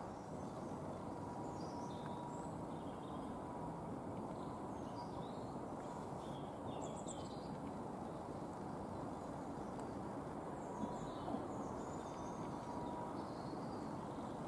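Small birds chirping in short scattered calls over a steady low background noise.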